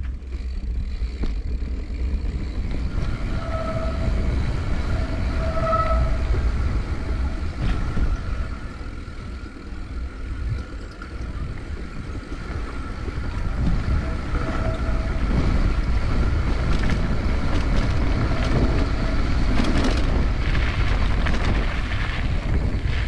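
Wind buffeting the microphone and the rumble of riding along a rough rural concrete road. A few short high tones come through about 4 and 6 seconds in, and again around 15 and 18 seconds.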